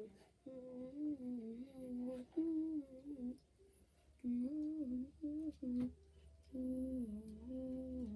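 A child humming a melody in held notes that step up and down, in short phrases with brief pauses between them. A few faint sharp clicks come in between.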